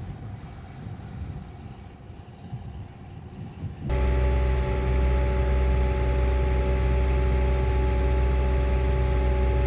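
Engine of a 1999 Landquip self-propelled crop sprayer, heard from inside its cab, running at a steady speed with a loud, even drone. It comes in suddenly about four seconds in, after a faint low rumble.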